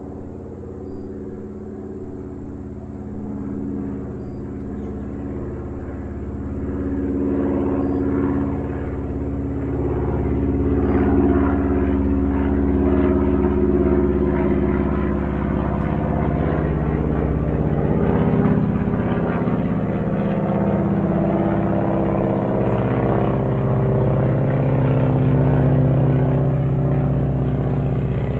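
Airplane in flight, its engine droning with a steady pitched hum. It grows louder over the first ten seconds or so, then holds steady while the pitch drifts slowly.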